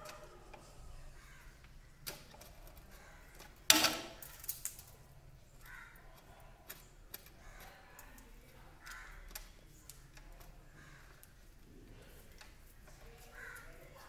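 Scattered clicks and knocks of hands working wires and terminals at an electrical distribution board, the loudest a sharp knock about four seconds in.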